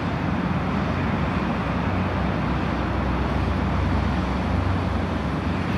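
A vehicle engine running steadily nearby, a low even hum under a broad rushing noise that holds level throughout.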